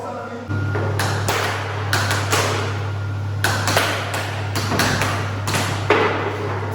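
A series of about a dozen sharp knocks and clacks at uneven spacing over a steady low hum.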